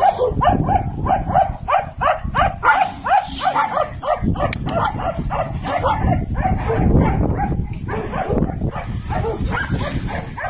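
A dog barking without pause in short, high yelps, about three a second.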